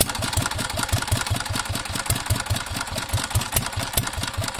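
Single-cylinder stationary diesel engine of a tubewell pump idling with no load, its drive belt not yet fitted: a steady beat of about five low thumps a second with sharp ticks on top.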